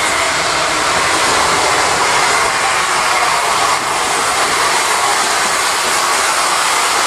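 LSWR 0298-class 'Beattie' 2-4-0 well tank steam locomotive No. 30585 drifting in with its coaches, giving a loud, steady hiss of steam with no exhaust beats.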